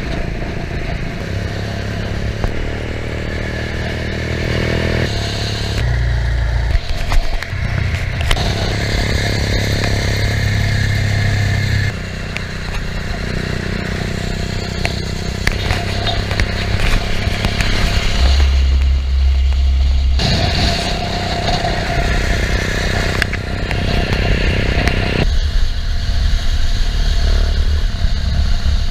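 Motorcycle engine running at road speed, with wind noise over the microphone. The engine's pitch shifts up and down several times.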